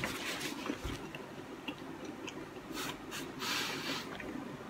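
A man chewing a mouthful of pulled-chicken sandwich on soft sliced bread with his mouth closed: small wet mouth clicks, with a breath about three and a half seconds in.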